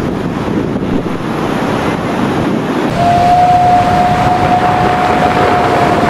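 Ocean surf and wind, a steady rushing noise. About halfway through, a single steady high tone comes in and holds.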